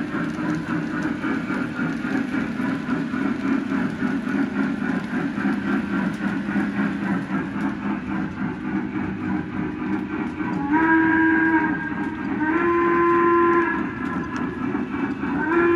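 Lionel O-gauge model of a C&O H-7 steam locomotive running along the track with a steady rumble. Its onboard sound system blows the steam whistle twice, each blast about a second long, and a third blast begins right at the end.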